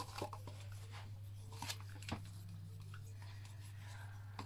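Light clicks and taps of thin disposable plastic cups being handled, one picked from a stack and set down on a kitchen scale, over a steady low hum.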